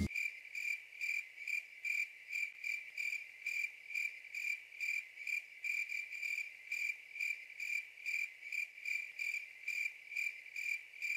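Cricket chirping steadily, one even chirp about twice a second.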